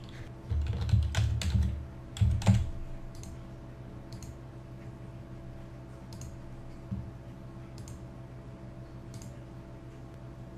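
Typing on a computer keyboard: a quick run of keystrokes lasting about two seconds, then a few faint, spaced-out mouse clicks. A low steady hum sits underneath.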